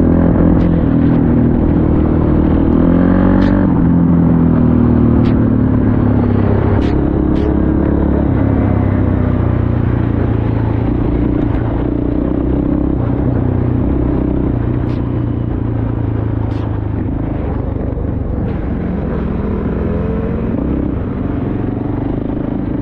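Suzuki LT-Z400 quad's single-cylinder four-stroke engine running under way on a dirt track, its pitch rising and falling a little with the throttle, over a steady rush of wind and a few sharp clicks.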